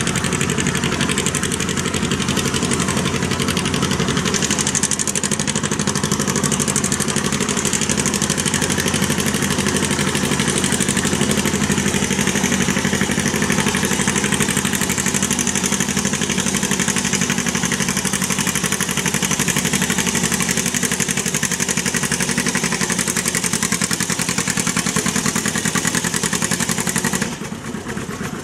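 Antique John Deere tractor engine working under load, pulling steadily against a pull truck with an even, unchanging engine note. The sound drops off suddenly near the end.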